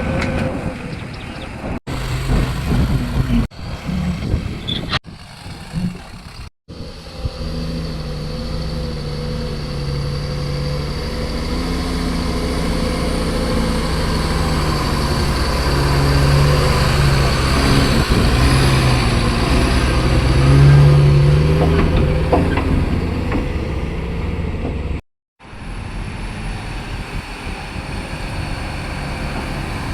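Diesel engine of a SANY SY210C-9 hydraulic excavator working under load while digging and loading mud, its pitch and loudness swelling and easing as the hydraulics take up the work. The sound breaks off abruptly several times in the first seven seconds and once more about 25 seconds in.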